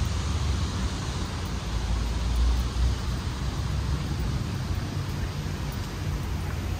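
Steady street noise of passing traffic, with a low wind rumble on the microphone.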